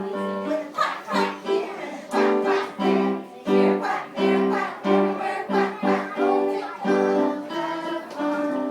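Group sing-along: voices, children's among them, singing a song to a strummed guitar.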